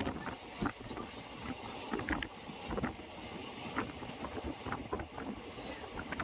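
Passenger train running: a steady rumble with irregular clatter and knocks.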